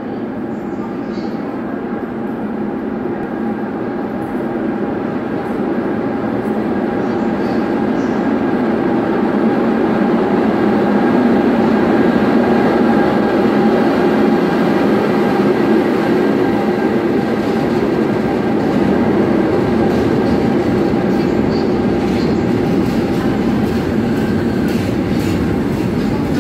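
Container freight train hauled by a Korail locomotive rolling past along a station platform: a steady rumble of locomotive and wagons that builds over the first ten seconds as the train draws alongside, then holds, with a faint steady high tone on top. The rumble echoes under the covered station roof.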